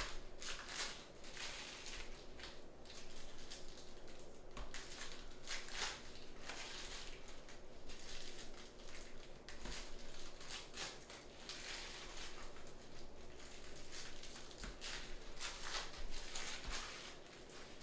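Trading cards and their packaging being handled: an irregular run of short papery swishes and rustles as cards are slid and shuffled.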